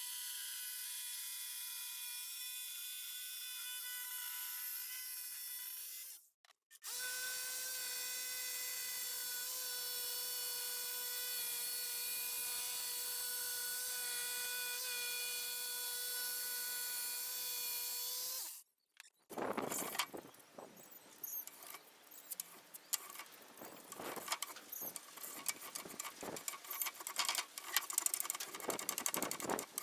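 A small power tool's motor running at a steady high whine, in two stretches broken by a brief silent gap. About two-thirds of the way through it cuts off, and irregular scratching and clicking follow.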